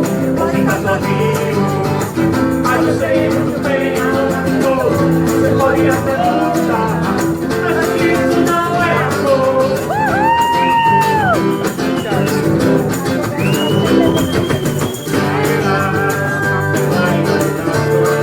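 Background music: a song with guitar and a singing voice, its melody rising and falling over steady sustained chords.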